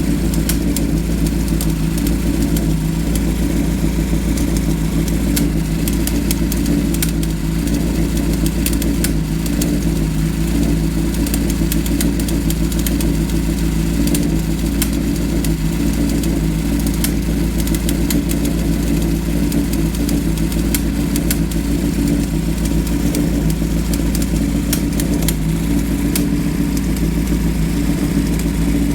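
Honda CBR400F air-cooled inline-four engine idling steadily, with an irregular ticking from around the cylinder head: an abnormal noise from the head area.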